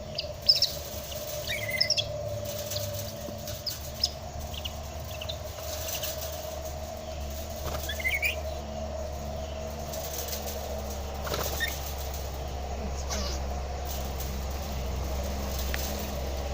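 A lory (nuri parrot) giving a few short, high chirps, scattered irregularly over a steady low hum.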